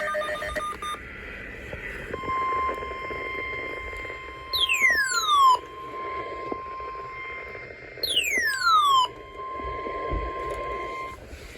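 Emergency Alert System weather-warning tones: a brief chatter of digital data tones at the very start, then a steady single-pitch alert tone lasting about nine seconds, the weather radio warning tone for a severe thunderstorm warning. Twice, about five and eight seconds in, a loud whistle sweeps quickly down in pitch into the steady tone.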